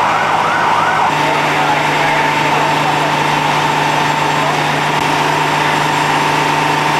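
Emergency vehicle siren on a fast yelp, quick rising-and-falling sweeps, until about a second in. There the sound changes abruptly to a steady engine hum and a held high tone, with slower siren wails faintly underneath.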